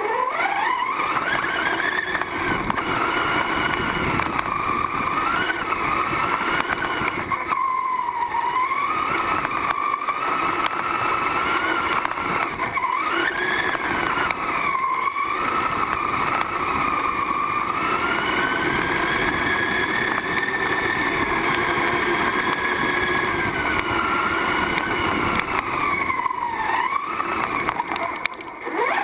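Onboard sound of a radio-controlled truggy (a Hong Nor X2CRT under a Tonka truck body) being driven. Its motor's pitch rises and falls continually with the throttle over the rattle and rumble of the chassis and tyres, with a short drop off the throttle near the end.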